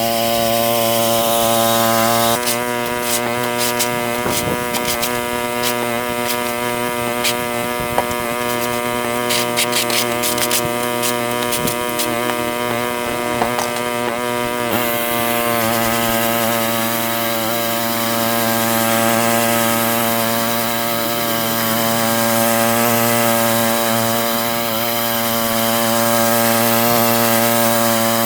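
Westermann petrol-engined moss brush running steadily while its rotating wire brush scrubs moss off the car park surface, with rapid scraping and clicking of grit and debris for the first half, then a smoother steady run.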